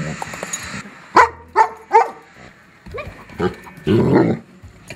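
Dog barking: three sharp barks in quick succession, then a few quieter barks and a rougher one near the end.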